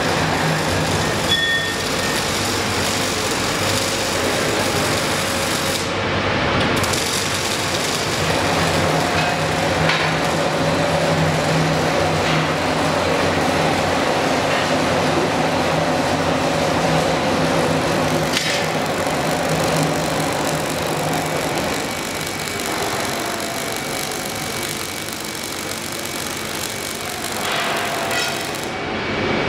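Robotic MIG welding torch running an arc along a stainless steel cathode plate: a steady crackling buzz with a faint hum underneath.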